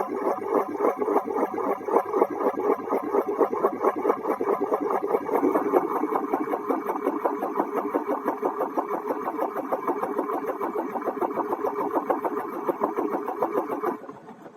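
An engine running with a fast, even pulse, stopping abruptly near the end.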